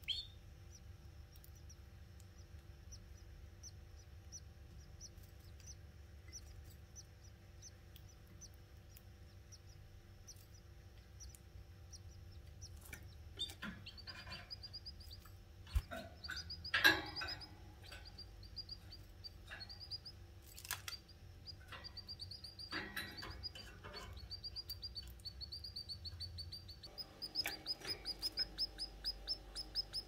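Canary nestlings begging: high, thin cheeps. They begin about halfway through and turn into a fast, even series of a few cheeps a second near the end. A few soft knocks and rustles from the nest come in between.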